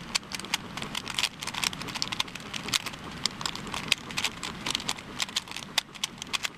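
Rubik's cube being twisted rapidly to scramble it: a dense, irregular run of sharp plastic clicks and rattles.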